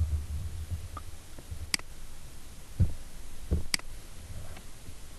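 Two sharp computer mouse clicks about two seconds apart, with a few dull low thumps over a low rumble of background noise.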